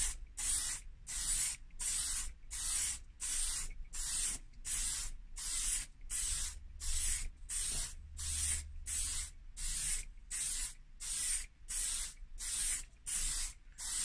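Aerosol can of lacquer spraying in short, regular bursts, about two a second, as coats are built up on a plastic dashboard panel.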